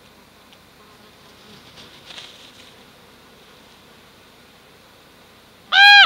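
A raven gives one short, loud, harsh call near the end, while it feeds at an elk carcass.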